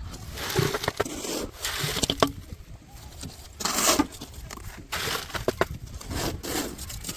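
Wet concrete being worked by hand: irregular scraping and sloshing bursts with scattered sharp knocks of tools.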